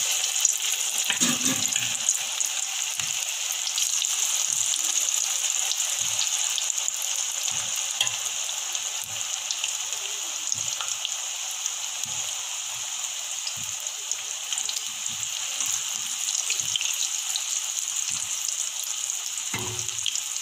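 Cornflour-battered baby corn pieces deep-frying in hot oil in an iron kadai: a steady, dense sizzle with fine crackling pops. It is loudest in the first few seconds after the pieces go in, then eases slightly.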